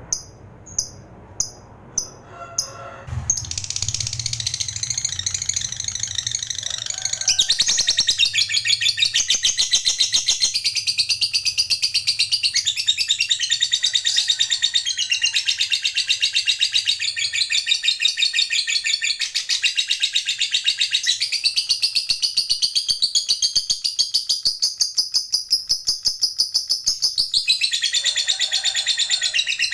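Lovebird first gives a few separate sharp chirps, about two a second. Then, about three seconds in, it goes into one long unbroken, very rapid high-pitched chatter: the lovebird's long trilling song, 'ngekek panjang'.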